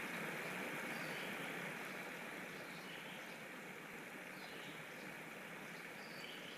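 Philips electric mini chopper running as it minces chicken, a steady noisy whir that eases slightly about two seconds in.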